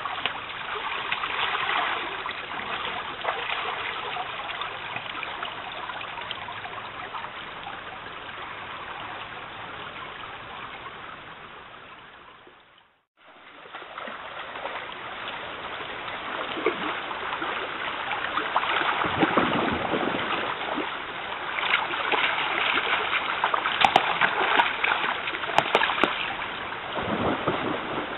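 Shallow stream running over stones, with splashing as a bear wades and catches a salmon. The water sound fades out about halfway through, then comes back louder with heavier splashing toward the end.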